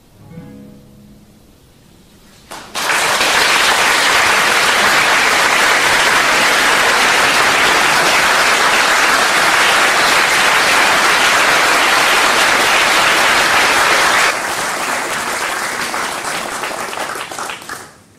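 The final sung chord fades out, then, a couple of seconds in, an audience breaks into loud, sustained applause. Near the end it drops somewhat, thins into separate claps and dies away.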